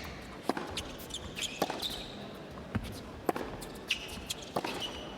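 Tennis rally: a ball is struck by rackets and bounces on the court in a series of sharp pops about every half second to a second, with players' shoes squeaking on the court between shots.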